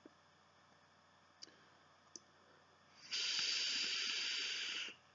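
AB1 Mirage V3 dripping atomizer's dual coils sizzling, with air rushing through its airflow, during a long pull on the vape: a steady hiss of about two seconds that starts about three seconds in and cuts off sharply. Two faint clicks come before it.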